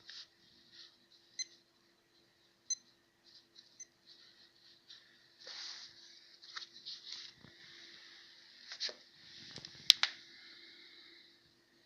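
Unboxing handling noise: packaging rustling and crinkling with scattered light clicks. The loudest is a sharp click about ten seconds in, over a faint steady hum.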